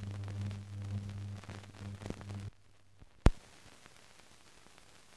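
Low steady hum with crackle on an old optical film soundtrack, which cuts off about two and a half seconds in. Faint hiss and crackle follow, with a single sharp loud pop a little later.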